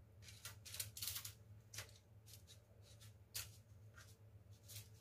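Faint rustling and crinkling of non-stick baking paper as hands press and smooth it flat on a baking tray, a string of short brushing sounds, under a steady low hum.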